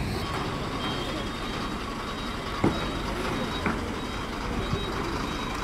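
Heavy truck tractor's diesel engine running steadily, with two sharp knocks about a second apart near the middle.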